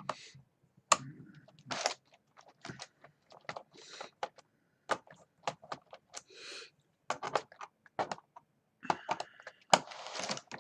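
Irregular plastic clicks, taps and short scrapes as the back of a gaming keyboard's case is pried and pulled apart.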